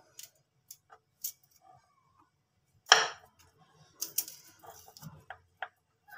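Kitchen knife cutting boiled potato slices on a wooden chopping board: a string of sharp taps and knocks of the blade against the board, the loudest about three seconds in, followed by a quick flurry of taps.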